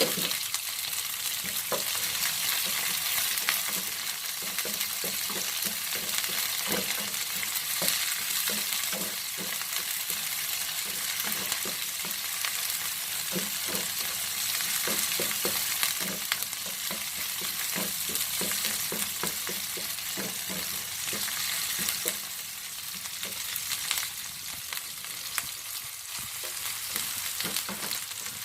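Sliced green chillies, shallots and garlic sizzling in hot oil in a pan, with a spatula scraping and tapping as they are stirred.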